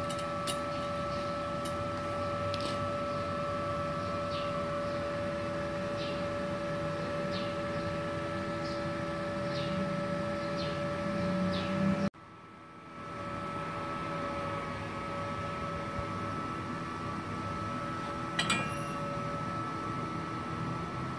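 Multipro TIG 200 A-SA IGBT inverter welder switched on and idling, giving a steady electrical whine of several held tones with light scattered ticks. The sound drops out abruptly about twelve seconds in, then returns, and there is a sharp click near the end.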